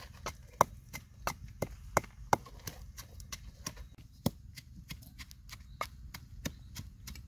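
Wooden pestle pounding in a clay mortar: a string of sharp knocks at roughly two a second, irregularly spaced, some much louder than others.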